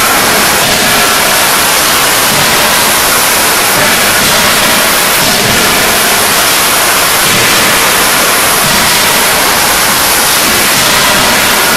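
Loud, steady static-like hiss of forging-shop machinery noise, with no separate hammer blows standing out.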